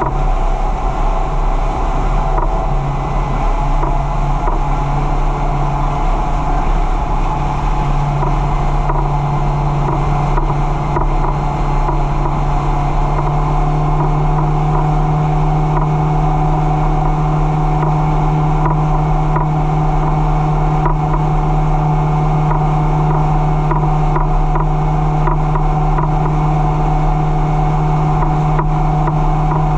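Fishing boat's engine running steadily at speed, with water rushing along the hull.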